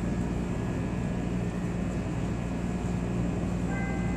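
Steady hum and rumble of a CTA rapid-transit rail car standing at the platform with its equipment running, and a faint high tone coming in near the end.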